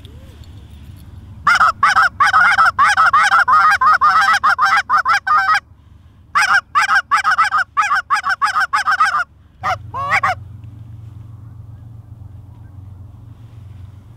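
Handheld Canada goose call blown in a fast chatter of honks and clucks, about five notes a second, in two long runs with a short break and two last notes, calling to incoming geese.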